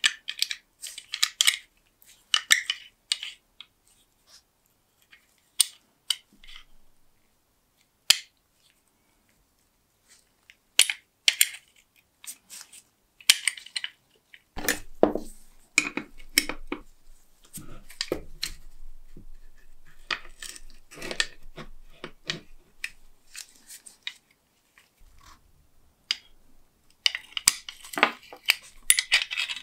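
Rusty antique door lock being worked with its key: irregular metallic clicks and short scrapes as the key turns and the latch moves, catching and sticking from rust. Near the end, a spanner clinks and scrapes on a nut of the lock case.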